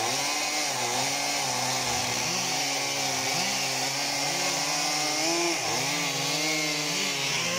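Stihl MS 362 two-stroke chainsaw cutting through a log at full throttle. Its engine pitch repeatedly dips and recovers as the chain bites into the wood.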